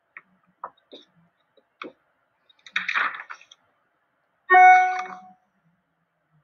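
A picture book being handled and its page turned: a few light taps and a paper rustle, then a single loud pitched tone, steady in pitch, that fades out within about a second.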